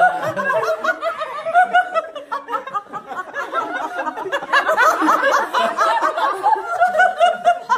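A group of people laughing together, many voices overlapping at once, the laughter swelling about halfway through.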